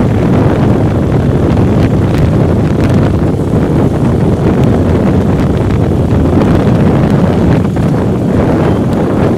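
Wind buffeting the microphone on a moving motorcycle: a loud, steady rumble with the bike's running noise mixed underneath.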